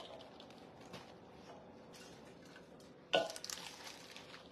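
Soft squishing and scraping of a cooked cabbage mixture scooped by hand out of a stainless steel mixing bowl, with a few small clicks and a single louder knock about three seconds in.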